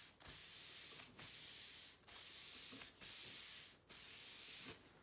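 A folded paper towel rubbed back and forth along the grain of a hardwood cutting board, spreading mineral oil in the finishing pass: five rubbing strokes of just under a second each, about one a second, ending near the end.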